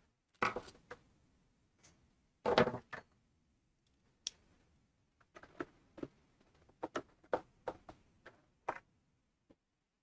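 Hands-on handling noise from the pancake air compressor's plastic shroud and cord during reassembly. Two short scuffing knocks come about half a second and two and a half seconds in, then a quick run of light clicks and taps for about three seconds.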